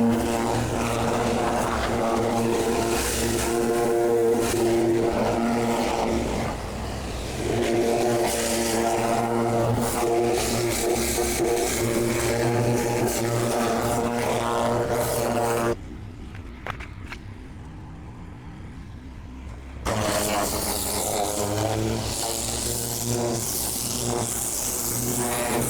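Gas-engine hot water pressure washer running steadily under load. The engine note dips briefly about seven seconds in, and the sound drops off sharply for about four seconds before coming back.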